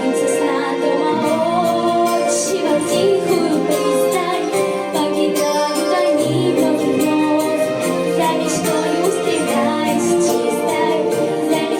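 Music: a song's passage without recognisable lyrics, a melody line over held accompaniment.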